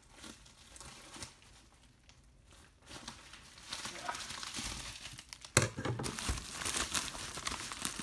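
Plastic poly mailer envelope crinkling and rustling as it is handled and torn open. It is quieter around two seconds in and busier from about three seconds, with one sharp, loud crackle about five and a half seconds in.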